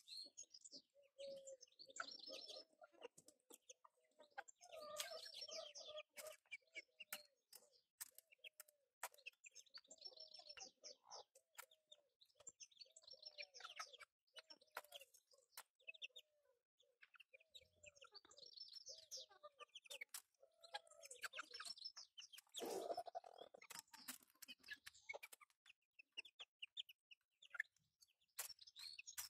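Bantam chickens feeding: soft repeated clucking with high chirps, and many sharp taps of beaks pecking grain in the trough. One louder call comes about two-thirds of the way through.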